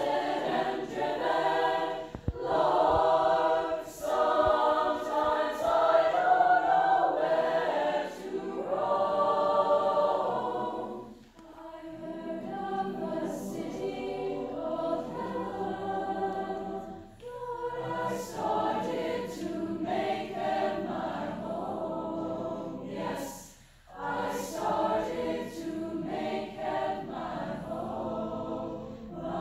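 Mixed choir singing a medley of spirituals, loud through the first ten seconds or so, then softer, with a brief break about six seconds before the end.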